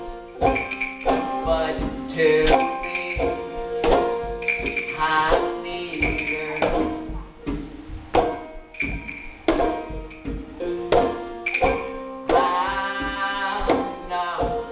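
Live acoustic folk band playing: picked banjo and strummed acoustic guitar over a steady beat of hand drum, snare and bass drum.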